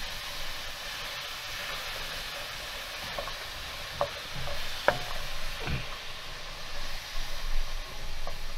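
Diced onion, celery and carrot sizzling steadily in a ceramic-coated frying pan as a wooden spoon stirs them. There are a few short knocks of the spoon against the pan about four to six seconds in.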